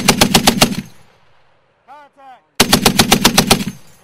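M2 .50-calibre heavy machine gun on a tripod firing two short bursts of rapid, evenly spaced shots, each about a second long and about a second and a half apart, the first already under way at the start, each trailing off in an echo.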